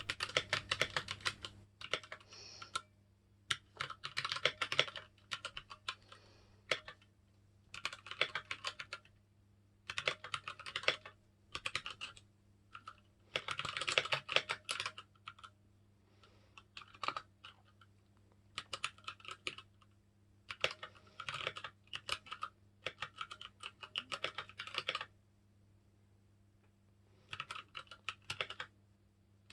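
Typing on a Keychron K6 mechanical keyboard with brown switches: runs of rapid key clicks a second or two long, broken by short pauses. A faint low hum runs steadily underneath.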